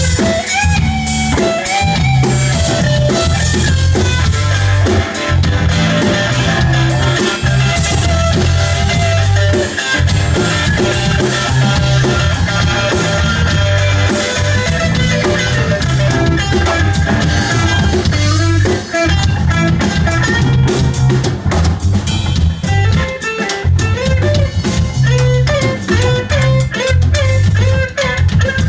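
Live rock band playing an instrumental passage: electric guitar, electric bass and drum kit, with no vocals.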